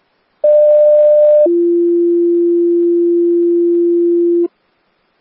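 Two-tone sequential fire paging tone over a dispatch radio channel: a higher steady tone for about a second, then a lower steady tone for about three seconds, alerting a fire department (here Long Lake Fire) before the voice page.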